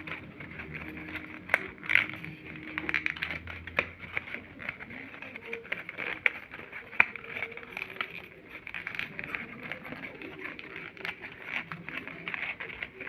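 Paper being handled and folded: continuous rustling with many short crackles and clicks.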